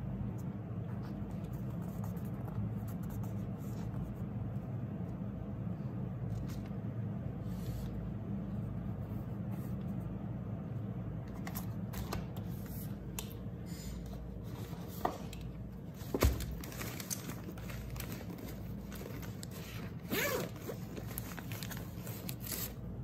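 Paper sticky-note pads and a spiral notebook being handled and slid on a desk, with scattered rustles and one sharp knock about two-thirds of the way through. Near the end a zippered canvas pencil pouch is opened and rummaged, over a steady low hum.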